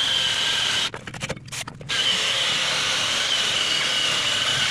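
Cordless drill spinning a soft abrasive bit against the rusty splined end of a driveshaft, scrubbing off surface rust. The motor runs with a steady whine, stops and stutters in short bursts about a second in, then runs steadily again.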